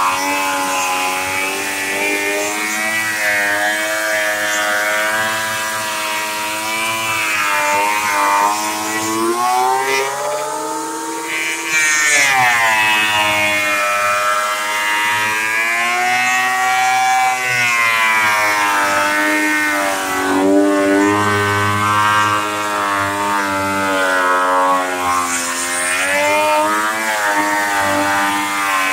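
Ridgid benchtop thickness planer running while planing old weathered lumber. It is a steady motor whine whose pitch sags and recovers several times as the cut loads and unloads it.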